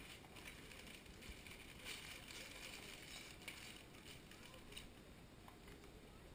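Faint rustling and a few light clicks of cardboard and paper packaging being handled while a Lego set box is opened.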